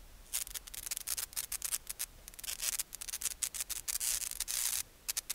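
Scratchy rubbing noise in many irregular short bursts, mostly high-pitched with little low end, pausing briefly near the end.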